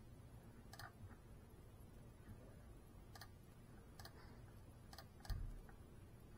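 Near silence with a handful of faint, sharp clicks scattered through it and one short low thump a little over five seconds in.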